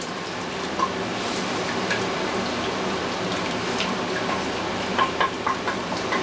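Milk sizzling in a hot butter-and-flour roux in a stainless steel pot while it is stirred for béchamel, a steady hiss with the wooden spatula clicking against the pot a few times near the end.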